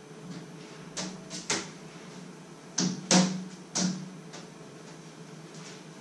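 Kitchen handling noises: six sharp knocks and clunks, three about a second in and three more around three seconds in, the loudest just after three seconds, over a steady low hum.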